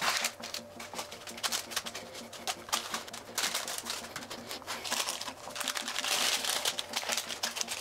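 Fingers pressing and patting shortbread dough flat in a baking tray lined with baking paper, making a run of soft taps while the paper crinkles and rustles.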